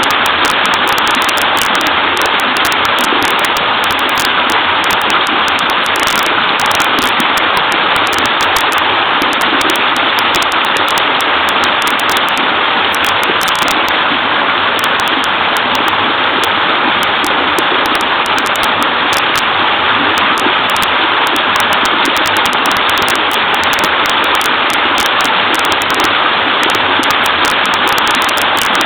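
Small waterfall on a fairly wide stream: clear water splashing and babbling steadily, without a break.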